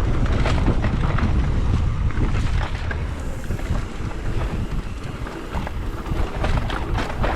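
Wind buffeting the microphone over the rumble of tyres rolling on a dirt trail, with scattered rattling clicks from the bike over rough ground.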